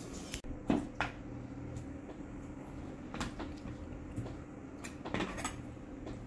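Kitchen handling sounds: a few sharp knocks and clacks in the first second, another about three seconds in and a short cluster around five seconds, over a steady low hum.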